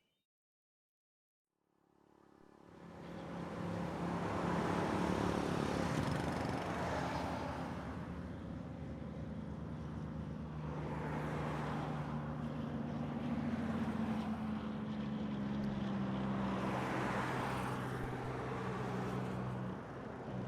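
A motor vehicle engine running steadily, fading in after about two seconds of silence.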